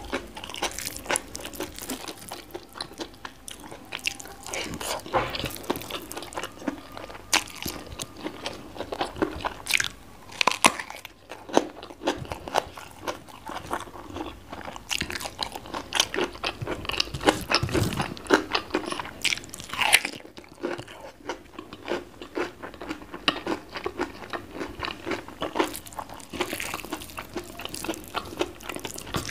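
Close-miked chewing and crunching of food: mouthfuls of fried omelette, rice, chili sambal and raw vegetables, with many short crisp bites.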